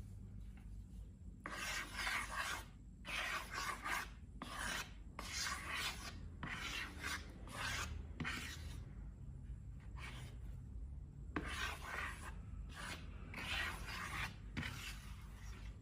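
Hands rubbing and working slime and long balloons: a run of scratchy rubbing strokes, irregular in length, with a pause of about two seconds around the middle.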